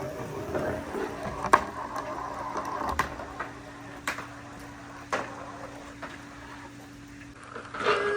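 Marbles rolling along a handmade wooden marble-run track, with sharp clacks about once a second as they strike the wood at joints and drops. A steady low hum sits underneath.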